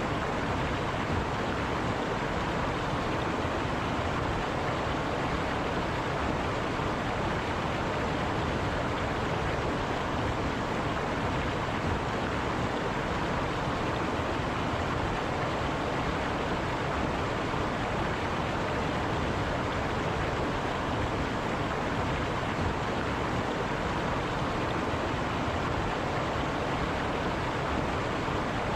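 A river running in a steady, even rush of water.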